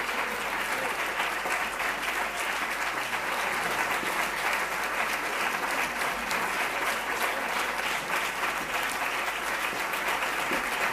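Large audience applauding steadily, a dense unbroken clapping, the ovation at the end of a speech.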